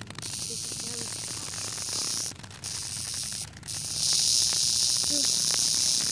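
Insect buzzing: a steady high hiss that cuts out briefly twice and gets louder about four seconds in.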